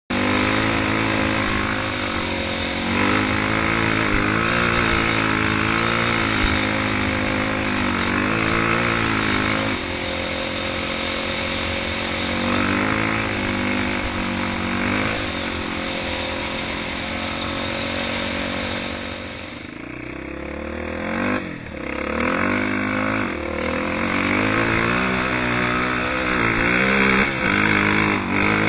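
Off-road vehicle engine running under way, its revs rising and falling again and again. About twenty seconds in the revs drop low and the engine goes quieter for a couple of seconds, then it revs back up.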